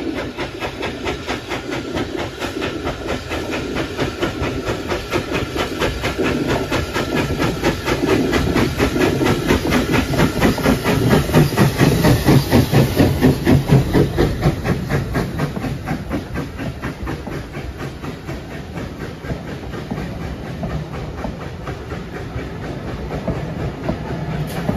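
SER O1 class 0-6-0 steam locomotive No 65 working a train past at close range: its exhaust beats and steam grow louder as it approaches, peak as it passes about halfway through, then ease off. The carriage wheels then run by on the rails as the coaches pass.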